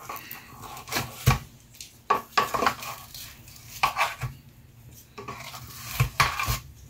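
Kitchen tongs clinking against a metal baking pan as roasted corn cobs are turned over in it: a string of irregular clinks and knocks.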